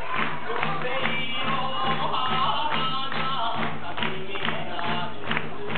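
Live band music with a quick, steady drumbeat and singing over it.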